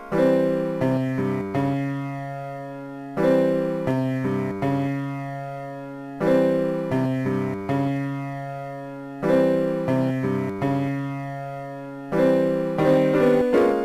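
Background music: a piano-like keyboard playing a slow melody over chords, in a phrase that starts again about every three seconds, each note struck and then fading.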